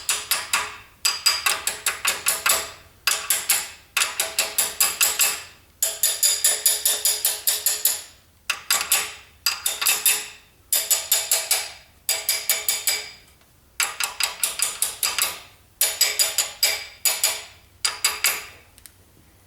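Bursts of quick metal-on-metal tapping, a wrench used as a hammer knocking the timing chain's crankshaft gear into place, each blow ringing. The blows come in rapid runs about a second long with short pauses between.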